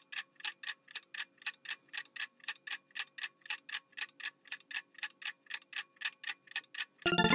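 Clock-ticking countdown sound effect: sharp, even ticks about four a second over a faint steady hum. Near the end a bright chiming jingle starts.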